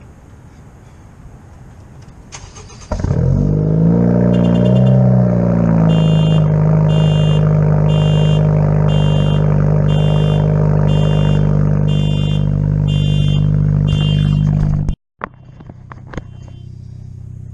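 2017 Honda Civic Hatchback Sport's 1.5-litre turbocharged four-cylinder with an aftermarket exhaust, cold-started: a brief crank, then it catches about three seconds in, flares up in revs and settles into a loud, steady idle. A car alarm set off by the exhaust's noise pulses about every two-thirds of a second over the idle, until the sound cuts off suddenly near the end.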